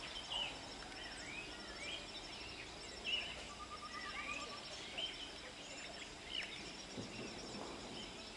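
Birds calling: repeated short chirps that swoop up and down, with a brief rapid trill about three and a half seconds in, over a faint steady outdoor hiss.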